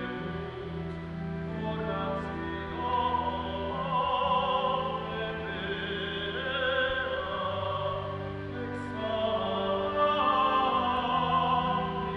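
Solo tenor singing a sacred song with wide vibrato over sustained organ chords; the organ's held notes shift every couple of seconds beneath the voice.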